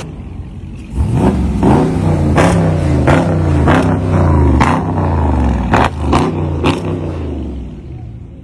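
Dodge Charger SRT Hellcat's supercharged 6.2-litre Hemi V8 revved over and over in quick blips, rising and falling about every half second to a second, with sharp cracks between the revs. It settles down near the end.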